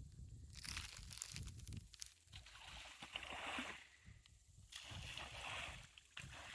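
Faint water splashing and sloshing from ducks bathing and diving in a pond, coming in three swells of a second or so each.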